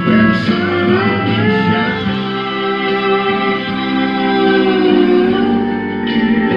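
Steel guitar playing a slow instrumental melody. Notes slide up in the first couple of seconds, then settle into a long held chord.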